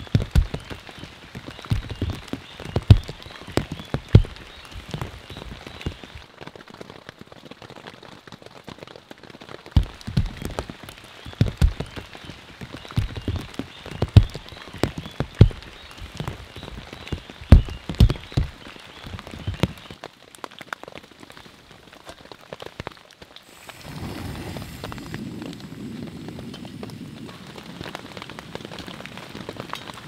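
Rain falling on a tent, with big drops hitting the fabric in loud, irregular strikes. About three-quarters of the way through, this gives way to the steady hiss of a backpacking gas stove burner.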